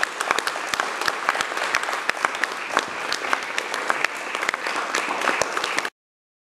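Audience applause, many hands clapping at once, which cuts off abruptly near the end.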